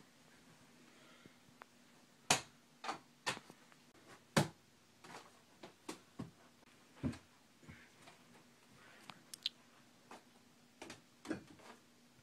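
Mini basketball knocking against the backboard, rim, walls and floor: about a dozen sharp, irregular knocks and thumps, the loudest about two and four seconds in, over a faint steady hum.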